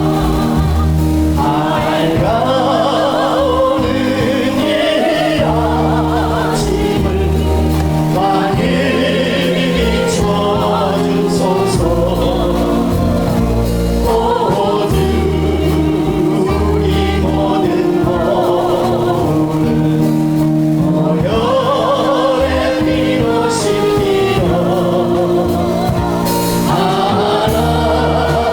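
A choir sings a gospel hymn over instrumental accompaniment, with sustained chords and steady bass notes.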